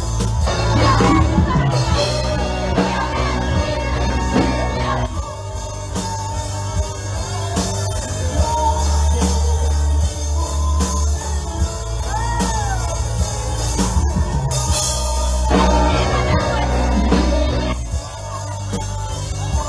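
Pentecostal worship music playing loudly: held low chords with singing voices rising and falling over them.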